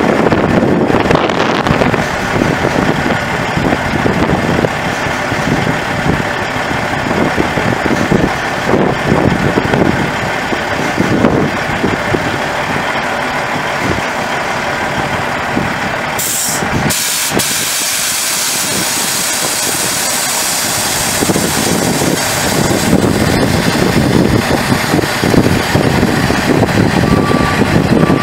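Peterbilt 379 dump truck's Caterpillar C15 turbo diesel engine running steadily. A little past halfway there is a sudden hiss, and near the end a backup alarm starts beeping.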